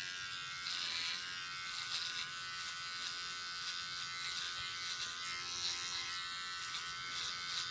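Small electric pet clipper running with a steady buzz while shaving off the long fur on the soles of a pet's feet, around the paw pads.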